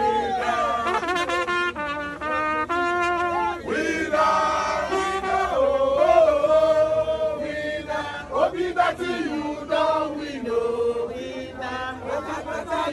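A crowd of people chanting and singing together in unison, a rising and falling tune that carries on without a break.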